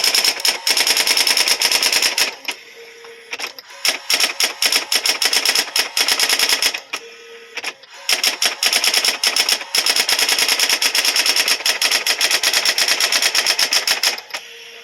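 Brother ML100 electric typewriter being typed on, fast runs of key strikes broken by a few short pauses in which the machine's steady motor hum is heard.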